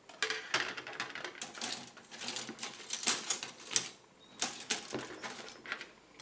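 Grey plastic kit sprue of Fine Molds 1/72 F-14A wing and tail parts being handled and turned over on a cutting mat: rapid clicking and rattling of the plastic, with a short pause about four seconds in.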